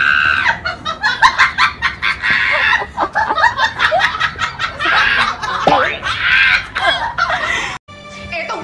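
Girls shrieking with high-pitched, cackling laughter in quick repeated pulses; it cuts off suddenly near the end.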